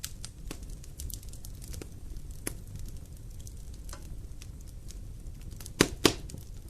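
Wood fire burning in a fireplace: a steady low rumble with scattered sharp crackles and pops, two loud pops in quick succession near the end.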